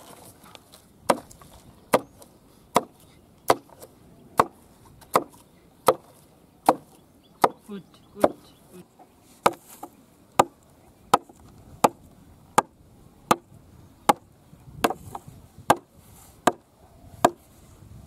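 Sharp, regular knocks, about one every three-quarters of a second, as a sharpened bamboo peg is hammered through a row of banana-tree trunks to pin them together.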